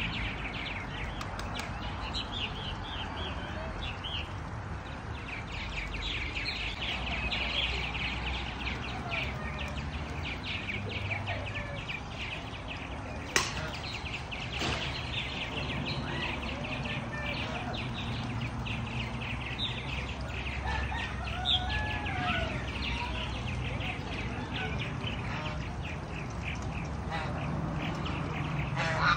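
Many small birds chirping together in a rapid, continuous chorus, with a few lower gliding calls mixed in and a single sharp click about thirteen seconds in.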